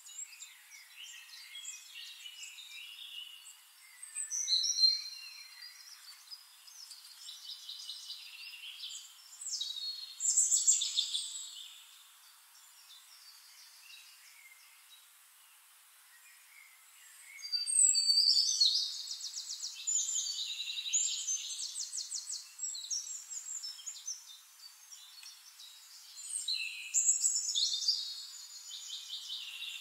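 Songbirds singing in phrases of high chirps, whistled glides and rapid trills, with a quieter stretch in the middle.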